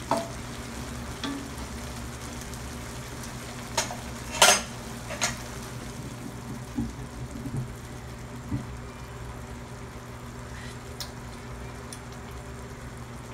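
Water spinach stir-frying in a metal wok: a wooden spatula stirs and knocks against the pan, with sharp knocks about four to five seconds in, the loudest near four and a half seconds, then the greens go on sizzling and simmering steadily.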